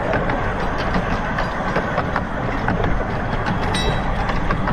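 A 15-inch gauge miniature steam train running along the track: a steady rumble of the wheels with frequent clicks over the rail joints, and a brief high ring near the end.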